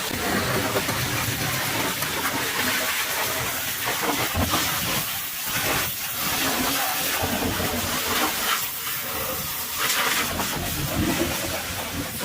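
Pressure washer spraying a mud-caked truck: a steady hiss of high-pressure water, rising and dipping a little in level.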